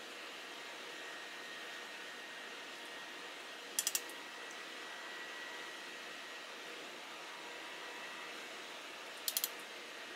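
Steady faint hiss of room tone, broken twice by a quick run of three or four light, sharp clicks: once about four seconds in and again near the end.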